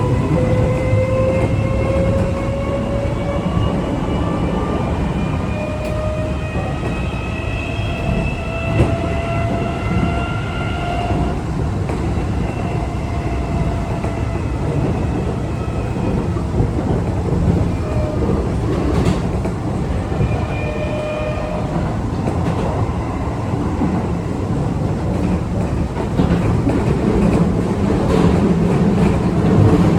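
Keio 8000-series train heard from inside the car, its Toshiba PMSM VVVF inverter and traction motors giving a stack of whining tones that rise slowly in pitch for about the first ten seconds, then fade out. Shorter whining tones return for a few seconds midway, over steady wheel-and-rail running noise with rail-joint clicks. The uploader calls this inverter sound a loud, high-pitched abnormal noise, like that of the Seibu 40050 series.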